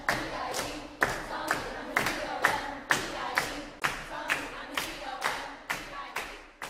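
Background music with a sharp, clap-like beat about twice a second over sustained pitched tones, fading out over the second half.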